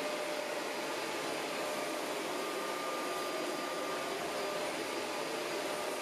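Shark Rotator Professional Lift-Away upright vacuum running with its brush roll switched off, drawing in dry leaves on a hardwood floor. A steady rush of suction with a faint whine.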